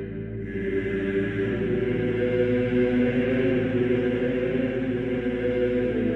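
Background music: a choir singing Gregorian chant in long held notes.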